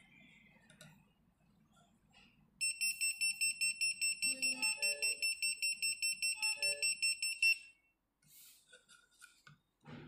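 Tuya WiFi water leak detector sounding its alarm, set off by its probe sitting in water: rapid high-pitched beeping, about five beeps a second, that starts a few seconds in and stops abruptly after about five seconds.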